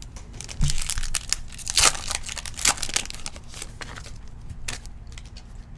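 Foil wrapper of a Prizm Draft Picks football card pack crinkling and tearing as it is ripped open, loudest about two seconds in, then thinning to a few lighter crinkles.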